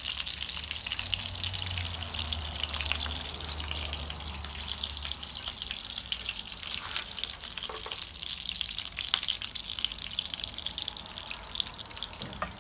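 Crumbed pork chops sizzling in shallow oil in a frying pan: a steady dense crackle with a few sharp clicks over it.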